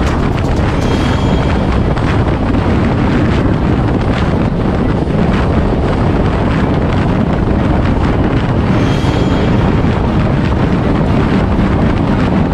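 Steady wind noise buffeting the camera microphone on a Honda CBR 125R motorcycle riding at highway speed, with the bike's running engine and road noise mixed in beneath.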